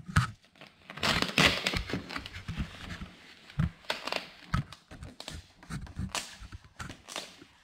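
A sheet of smoked vinyl tint film crinkling and peeling as it is handled, lifted and pressed onto a car tail light by hand: a string of short crackles, densest about a second in.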